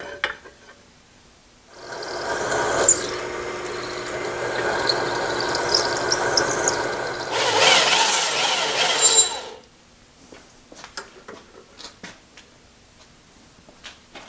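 Bench drill press running and drilling through a steel plate, the bit squealing in the metal. It starts about two seconds in, grows louder and stops abruptly a few seconds before the end, followed by light clicks of tools being handled.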